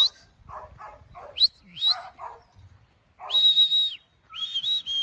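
A shepherd's whistled commands to a working sheepdog: quick rising whistles, then a long steady whistle and a wavering one near the end. A dog's short barks come between the whistles.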